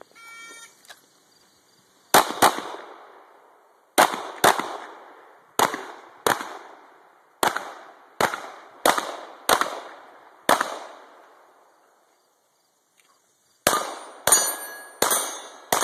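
A 9mm CZ 75 pistol firing a rapid string of about eleven shots, then a pause of a couple of seconds and four more shots, at steel plate targets. Steel rings after several of the hits. A short electronic tone sounds just before the first shots, typical of a shot timer's start signal.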